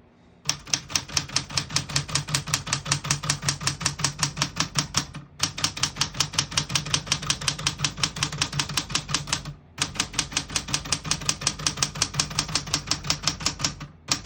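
Keys of a 1976 Smith-Corona Galaxie Twelve manual portable typewriter being typed in a fast, even run of strikes, about seven a second, in three stretches with two brief pauses.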